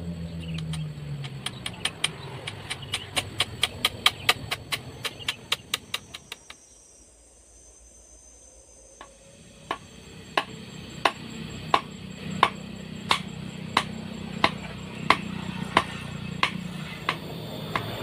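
Repeated sharp striking blows: first a quick run of about four knocks a second, then, after a pause of a few seconds, slower single knocks about one and a half a second apart.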